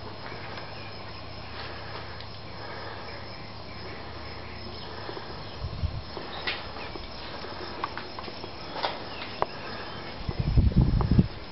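Faint insect chirping over a steady low hum, with a few light clicks in the second half, then heavy low thumps near the end.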